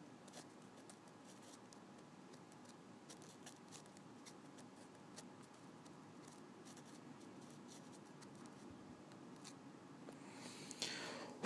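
Faint, scattered light ticks and scratches of a metal pick scraping burnt rolling-paper ash off a kanthal wire coil. Near the end comes a rising rush of breath blown at the coil to clear the debris.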